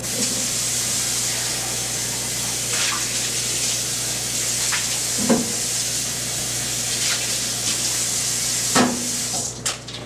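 Kitchen sink tap running steadily into the basin while dishes are washed, with a few short clinks of dishes along the way. The running water stops shortly before the end, followed by a louder clatter.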